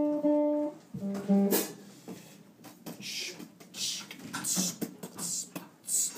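Acoustic guitar: a few plucked notes held and ringing for about the first second and a half, then the playing stops and only scattered rustling and clicks remain.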